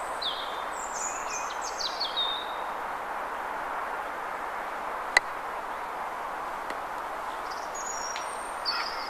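Small birds chirping over a steady outdoor background. About five seconds in comes a single sharp click: a croquet mallet striking the ball.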